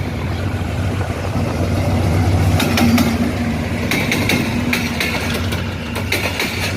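A train running past on the track: a steady low rumble with a held hum, then from about midway sharp wheel clicks over the rail joints, coming in quick groups.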